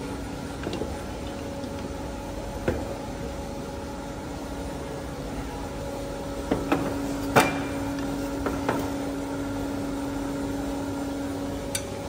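Steady electrical hum from a precious-metal melting furnace, its tone growing stronger about halfway through. Over it come a few sharp metallic clinks of steel crucible tongs, the loudest a little past seven seconds.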